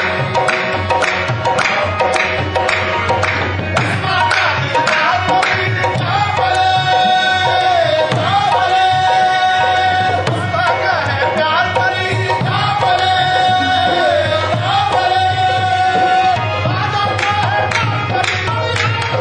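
Qawwali music played live: tabla keeps a fast, even rhythm under harmonium. From about six seconds in, a sung melody of long held, sliding notes comes over the top until about sixteen seconds in, when the percussion comes forward again.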